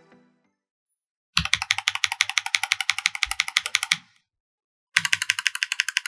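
Lumia and Glorious Holy Panda tactile mechanical keyboard switches pressed in rapid runs of keystrokes on a brass-plated KBD75V2 with cherry profile keycaps, making sharp, bright clacks. There are two bursts: one starts just over a second in, and the other starts about five seconds in, after a pause.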